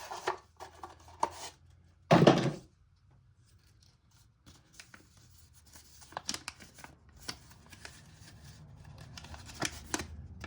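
A folded paper insert being handled and opened: scattered crisp paper rustles and small clicks, with one loud thump about two seconds in.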